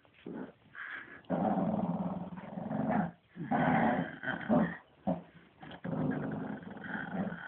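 Shih Tzu play-growling, a low rough growl in several long bouts, each a second or two, with short breaks between them.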